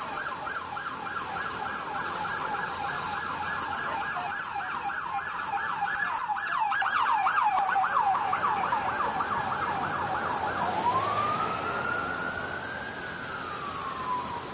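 Emergency vehicle's electronic siren on a fast yelp of about four sweeps a second, switching about ten seconds in to a slow wail that rises and then falls. It is loudest around the middle.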